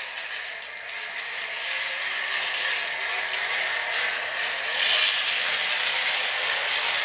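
Vintage Tri-ang electric model locomotive pulling two carriages around the track: a steady motor whir with the clatter of wheels over the rail joints. It runs, but not as well as it should, which the owner puts down to dirty track and poor connections.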